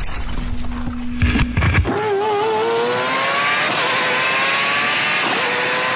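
Car engine sound effect: a few knocks, then from about two seconds in a loud steady hiss with an engine whine slowly rising in pitch, like a race car accelerating.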